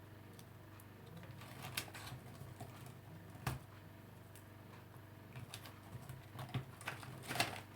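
Light, irregular clicks and taps of hands laying tomato slices onto a pizza on a metal baking tray, with one sharper tap about three and a half seconds in.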